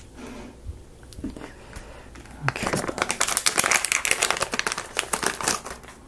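Crinkling and rustling of a drop cloth being handled and spread out under the work, a few light clicks at first, then a dense crackling from about two and a half seconds in.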